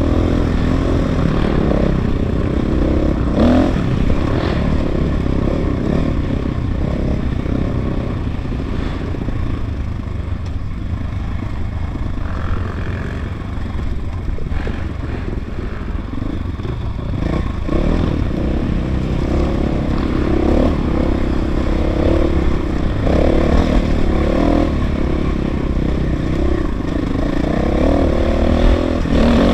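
KTM 500 EXC dirt bike's single-cylinder four-stroke engine running under throttle on a trail ride, its revs rising and falling.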